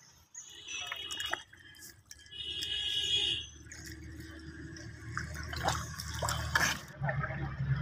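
Shallow muddy water trickling and splashing, with bare feet wading through it. Drips and splashes are busier in the second half.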